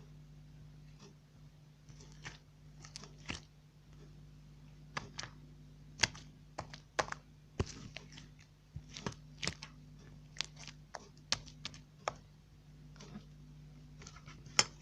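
Irregular sharp clicks and taps, sometimes several a second, over a steady low hum.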